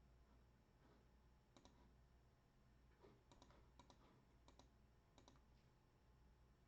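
Near silence: a few faint, sharp clicks, some in quick pairs, over a low steady hum.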